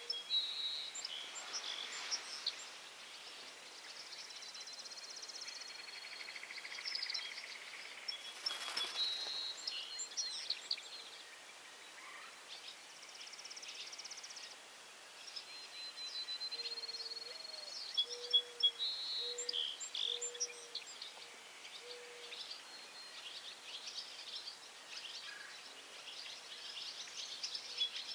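Wild birds singing and chirping over a faint outdoor background, with repeated high trills and short chirps throughout. About two-thirds of the way through comes a run of five or six short, low, evenly spaced notes, the first one rising.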